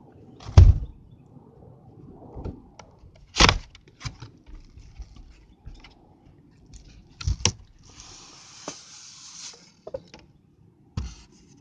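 Packaging of a boxed die-cast model being opened and handled: scattered knocks and clicks of cardboard and parts being moved, and a scraping hiss lasting about a second and a half, about eight seconds in.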